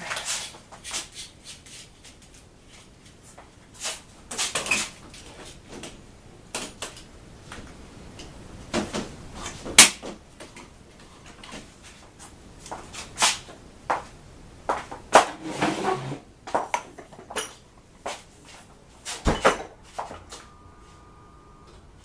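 Objects being handled and moved about: a string of irregular knocks, clicks and rustles, the sharpest knock about halfway through, then a brief steady tone near the end.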